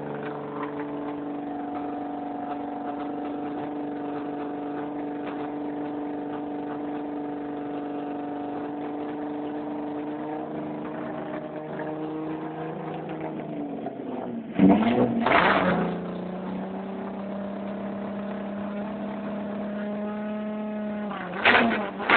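Volkswagen Golf Mk2's VR6 engine idling steadily through its exhaust, then given a sharp throttle blip about fifteen seconds in that drops back to idle, and another short blip near the end.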